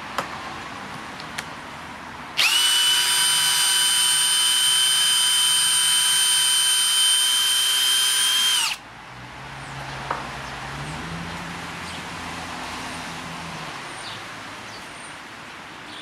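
Cordless drill motor running at full speed with a steady high whine for about six seconds. It starts abruptly a couple of seconds in and winds down quickly near the middle. Quieter background noise with a few clicks lies either side.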